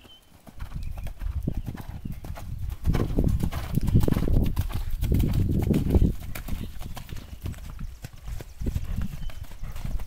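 Chestnut horse's hoofbeats on a sand arena at the canter, a steady rhythm of thuds that grows loudest a few seconds in as the horse passes close, then fades as it moves away.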